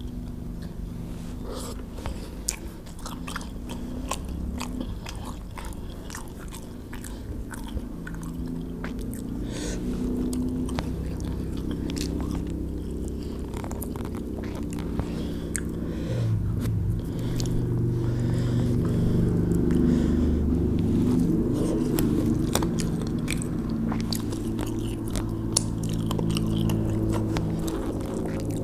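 Close-miked eating: a person chewing grilled fish and rice, with many small wet mouth clicks and smacks, getting louder about halfway through.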